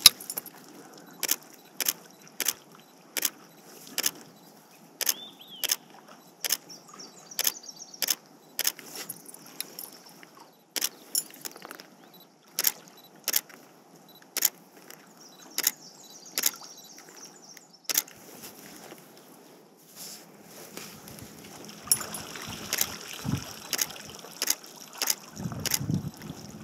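Bull moose chewing water plants, a sharp crunch repeating a little more than once a second, over a faint trickle of water.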